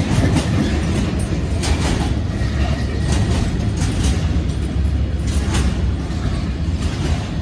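Container freight train's wagons rolling past close by: a steady low rumble of wheels on rail with repeated clicks as the wheels pass over the track.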